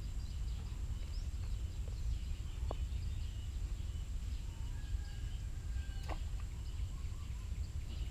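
Outdoor ambience: a steady low rumble with faint, scattered bird chirps and two brief clicks.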